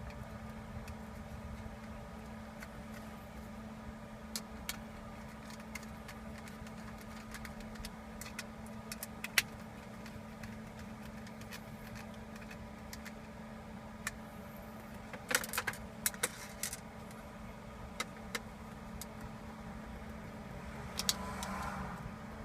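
Scattered small clicks and taps of T10 Torx screws and the parking brake module being handled and fastened back into the console, with a cluster of clicks about two-thirds of the way through, over a steady low hum.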